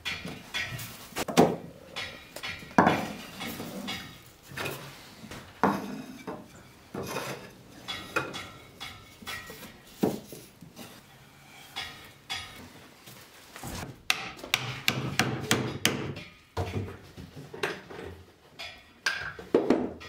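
Thin wooden slats clattering and knocking against one another and the wooden frame as they are fitted by hand around a cylindrical form: irregular wooden knocks, a few of them sharper and louder.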